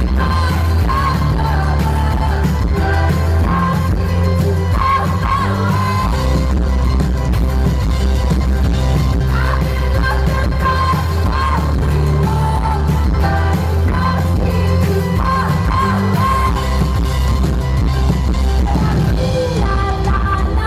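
Live pop song with a female lead vocal over a band, recorded from the audience: a heavy, boomy bass dominates the mix, which the uploader calls bad sound.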